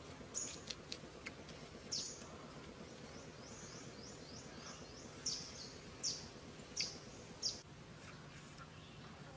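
A bird calling with short, high, falling chirps: a quick run of about eight notes, then four louder chirps spaced under a second apart, over faint outdoor background noise.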